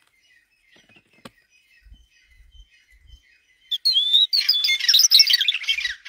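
Bird calls: a few faint chirps at first, then from nearly four seconds in a loud run of rapid, falling notes that carries on to the end.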